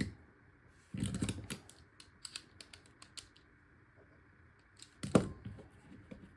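Small metal clicks and clacks of an American Lock AL1100 padlock's parts being handled and fitted back together, with a loud cluster of clacks about a second in, a scatter of light ticks after it, and another sharp clack about five seconds in.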